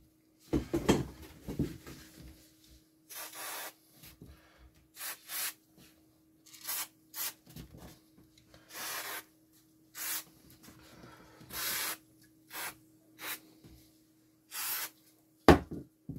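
Fingers rubbing a coat of orange-brown liquid onto a routed wooden panel in short strokes. A few knocks from the board being handled come at the start, and one sharp knock near the end, over a faint steady hum.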